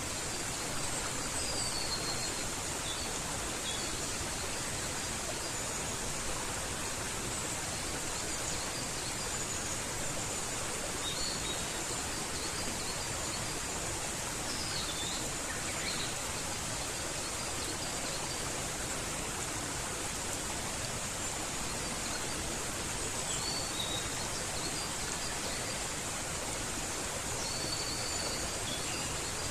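Mountain stream flowing with a steady rushing sound, with short whistled bird calls coming in now and then over it.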